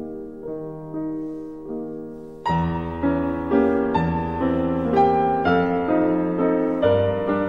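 Background piano music: a gentle melody of struck notes, turning fuller and louder with added low notes about two and a half seconds in.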